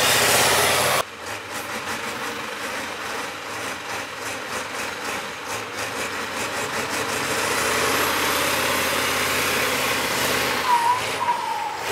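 A 6x6 trial truck's diesel engine working as the truck drives down into and through a mud pit. A loud rushing noise fills the first second and cuts off abruptly.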